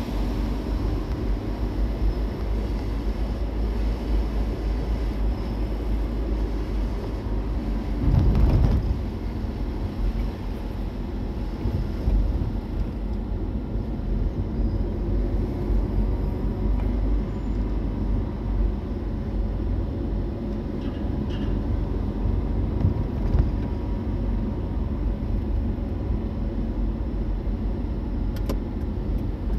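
A car driving along, with a steady low rumble of road and engine noise, swelling louder briefly about eight seconds in.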